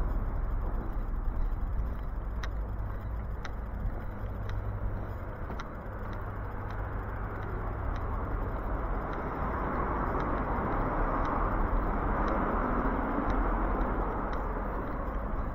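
Suburban street traffic: a car passing along the road swells in from about nine seconds in and eases off near the end, over a steady low rumble. Light ticks sound about once a second throughout.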